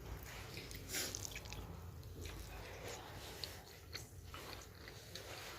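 Close chewing and mouth sounds of someone eating, with short wet smacks and clicks scattered throughout.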